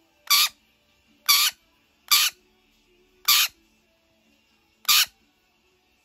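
Rainbow lorikeet giving five short, loud shrieks, roughly a second apart, over faint background music.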